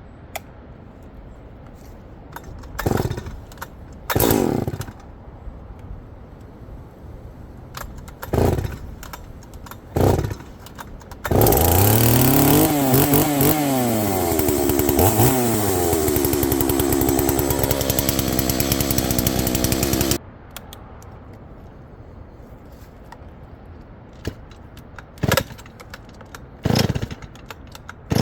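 Two-stroke chainsaw being pull-started cold: several short pulls on the starter cord, then the engine catches about eleven seconds in, is revved up and down, runs for about nine seconds and cuts off suddenly. A few more short pulls follow near the end.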